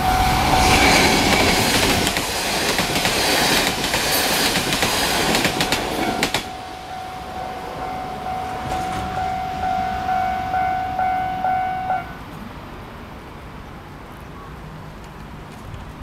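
A Taiwan Railways local train runs past with rapid wheel clatter on the rails, which cuts off sharply about six seconds in. The level-crossing warning bell keeps ringing in steady pulses and stops abruptly about twelve seconds in, as the crossing clears.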